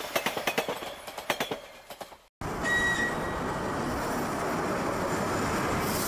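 Train wheels clicking rapidly over rail joints, fading away over the first two seconds; after a sudden cut, a steady rumble of a train running starts, with a brief high tone just after it begins.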